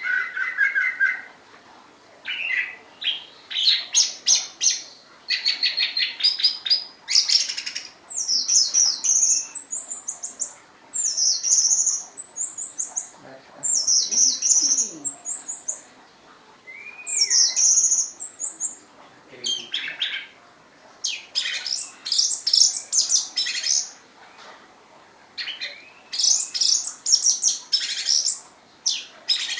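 Orange-headed thrush (anis merah) singing: varied phrases of rapid, high chattering notes and trills in short bursts, each a second or two apart.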